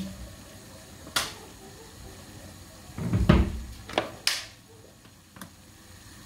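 Kitchen handling knocks: a sharp knock about a second in, a heavier low thud around three seconds in, which is the loudest, then two more sharp knocks close together and a faint tick near the end.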